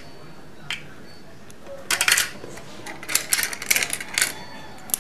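Hard plastic toy cash register pieces and coins clicking and clattering as they are handled, in quick runs of clicks about two seconds in and again from about three seconds in.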